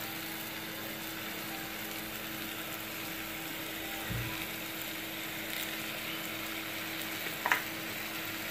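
Steady sizzle of taro cubes frying in oil in a pan, over a faint low hum. There is a soft knock about four seconds in and a short click near the end, as oil is poured from a bottle into an empty karahi.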